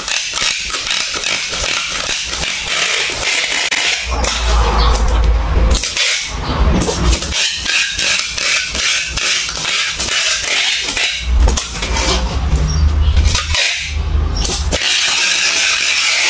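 Packing tape being pulled off a handheld tape-gun dispenser and run along a cardboard box: long rasping stretches of tape unrolling, broken by short pauses, with dull thumps and rubbing as hands press the tape down onto the cardboard.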